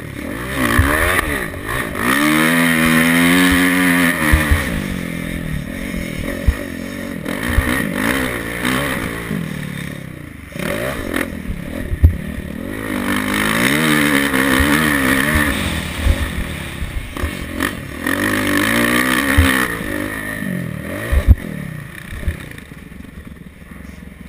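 Motocross dirt bike engine heard from the rider's helmet camera, revving up and down through the gears in several long bursts, with scattered sharp knocks from the bike over bumps. The engine drops back and goes quieter near the end as the bike slows.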